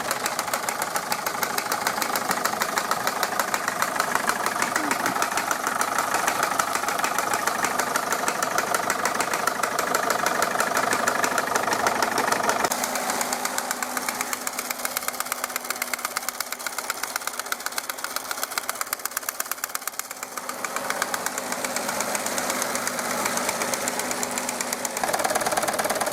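Wilesco D24 model steam engine running fast under steam, a rapid even beat with the clatter of the belt-driven workshop models it powers. The sound changes abruptly about halfway through and again near the end.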